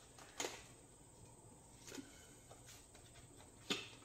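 Deck of tarot cards being handled and shuffled by hand: three faint, brief card clicks and taps, about a second and a half apart.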